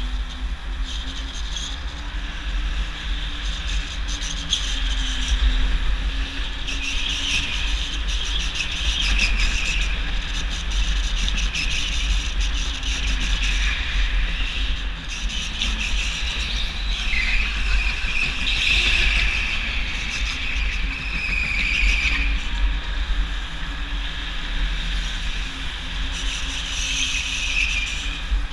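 Go-kart driven hard around a track, heard from a camera mounted on the kart: a steady low rumble from the kart and its motor, with tyres squealing at times in the corners, most clearly about two-thirds of the way through.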